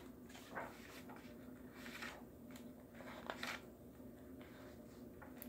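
Pages of a picture book being opened and turned by hand: a few faint paper rustles and brushes.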